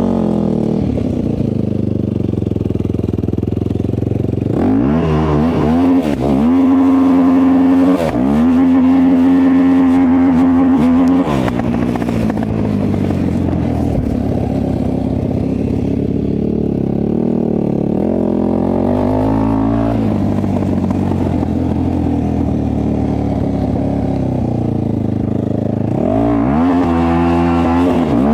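450cc single-cylinder four-stroke off-road engine revving hard in bursts, the pitch swinging up and down several times, with a high held rev for about three seconds near the middle and another run-up near the end.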